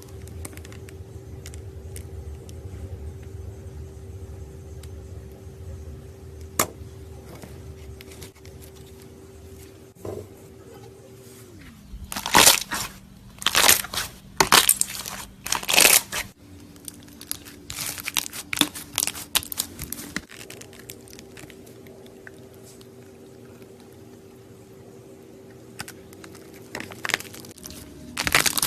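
Slime being pressed and squeezed, giving crackling, crunchy bursts that come in a loud run about halfway through and again near the end. A faint steady tone underneath changes pitch a few times.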